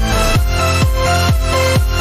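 Electronic dance music with a steady kick-drum beat, a little over two beats a second.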